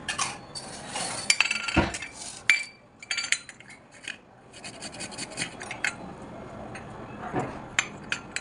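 Ginger and garlic being grated on a kitchen grater: runs of quick rasping strokes, with a pause of about two seconds partway through.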